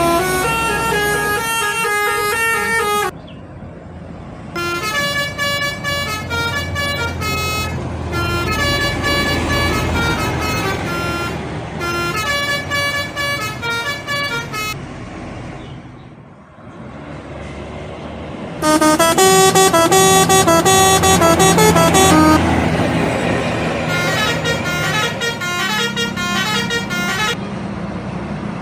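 Indonesian bus 'telolet' multi-tone horns playing quick tunes of stepped notes, one bus after another, over the low rumble of the buses' engines. The loudest horn tune comes about two-thirds of the way through.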